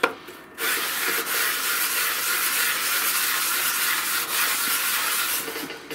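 Part of a marine diesel's raw-water pump rubbed in a figure of eight on emery cloth over a flat board: a steady sanding rasp that starts about half a second in and stops just before the end. The part's face is being lapped flat to take out light wear, a groove of less than a thou.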